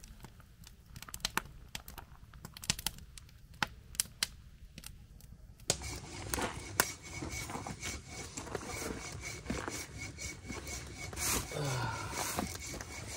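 Scattered sharp snaps and clicks of handled wood, then from about halfway a hand saw rasping steadily as it cuts through a thick piece of firewood.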